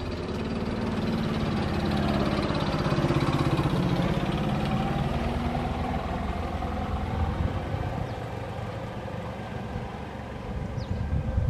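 A vehicle passing by, its low mechanical hum swelling to a peak about three seconds in and then slowly fading.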